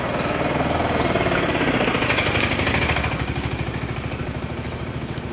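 Motor vehicle engine running with a rapid, even pulsing. It grows louder about a second in, then eases off slightly after about three seconds.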